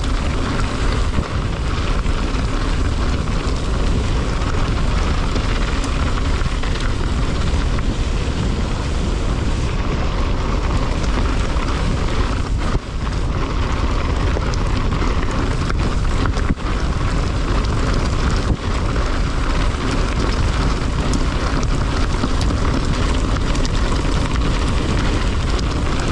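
Mountain bike descending fast: steady wind noise over the camera's microphone, mixed with the rumble of the tyres on the track.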